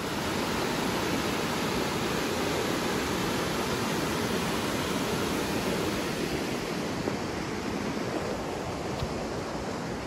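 Mountain river rushing steadily: an even wash of water noise.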